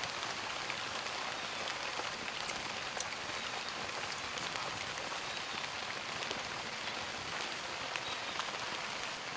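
Pot of eggs boiling hard over a wood fire: a steady bubbling hiss of the water, dotted with small pops and crackles.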